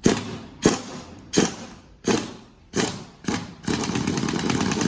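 Workshop knocking: six sharp knocks at an even pace, about two-thirds of a second apart, then a steady mechanical rattle for about the last second.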